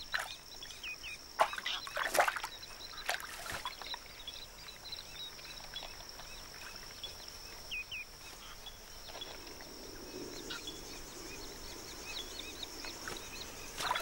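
Marsh ambience: a steady high-pitched hum, two short bird chirps about a second in and again around eight seconds, and a few soft water splashes in the first few seconds as a black heron wades in the shallows.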